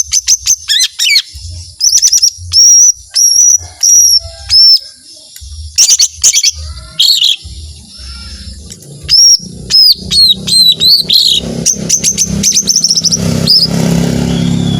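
Cucak ijo mini (lesser green leafbird) singing in long bursts of loud, sharp whistled notes and rapid trills, broken by short pauses. A low hum rises in the background over the last few seconds.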